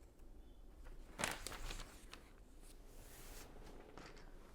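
Faint plastic clicks and rustling of Lego bricks being handled and pressed together, a few separate clicks with the loudest about a second in.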